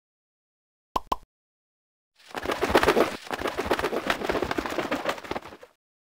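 Cartoon sound effect: two quick clicks about a second in, then a dense crackling rumble that lasts about three and a half seconds and stops abruptly.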